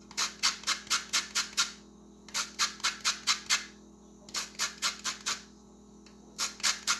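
Orange rind being rubbed on a metal box grater to zest it: quick rasping strokes, about four or five a second, in four short runs with brief pauses between. Light strokes that take only the outer peel.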